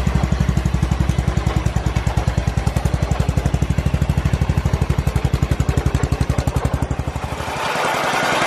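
Off-road mud mower's engine, fitted with a 26 mm Mikuni slide carburetor, running steadily with even exhaust pulses. Near the end the sound changes to a brighter, noisier engine note as the mower is driven outside.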